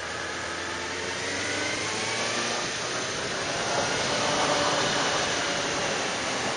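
Motorcycle engine running at road speed under a steady rush of wind on an action camera's microphone. The engine's pitch drifts gently up and down, and the sound grows louder over the first few seconds.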